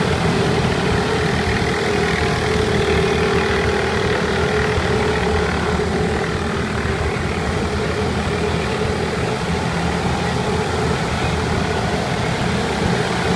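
Small motors of several bumper boats running together, a steady engine drone with a constant hum.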